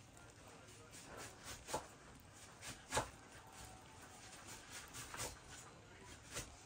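Quiet, irregular clicks and scrapes of a spoon moving through a pot of cooked rice and peas, about a dozen in all, the loudest about three seconds in.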